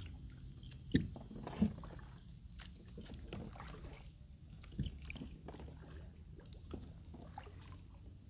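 Kayak paddling: paddle blades dipping and splashing through the water, with scattered drips and three sharp knocks, two within the first two seconds and one near the middle.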